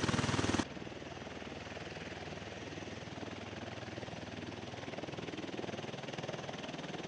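Tiltrotor aircraft rotor and engine noise with a fast pulsing beat. It is loud at first, then drops suddenly to a quieter, steady pulsing about half a second in.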